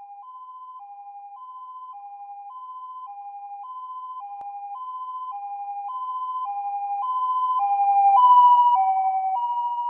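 Two-tone hi-lo emergency vehicle siren, switching between its two pitches about twice a second. It grows steadily louder as it approaches; about eight seconds in it is loudest and its pitch drops slightly as it passes, then it begins to fade.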